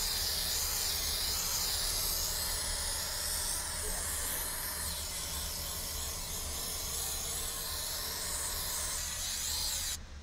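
Aerosol can of 3M General Trim spray adhesive spraying in one long, continuous hiss that cuts off abruptly just before the end.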